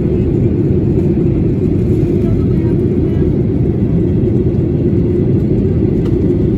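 Steady, low-pitched cabin roar of a Boeing 737-800 in flight, engine and airflow noise heard from inside the cabin.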